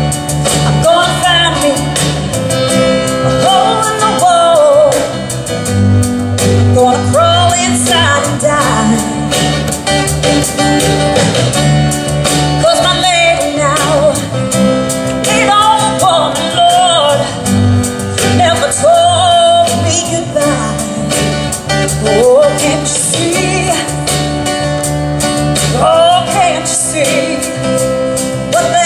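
A woman singing lead through a microphone, backed by a live band with acoustic guitar and electric bass.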